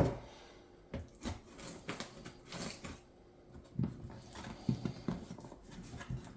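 Cardboard box tabs and flaps being worked open by hand: a sharp snap right at the start, then irregular short scrapes, rustles and knocks of cardboard.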